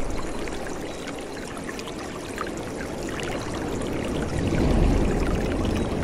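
Stream water running steadily, its low rumble easing in the first second and building again about five seconds in.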